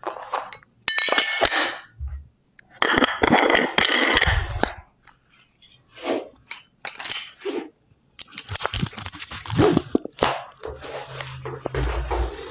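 A weight vest with a metal weight plate being put on and its side straps fastened: a series of sharp metallic clinks and clicks from the plate and strap hardware, some ringing briefly, mixed with rasping strap and handling noise that grows denser near the end.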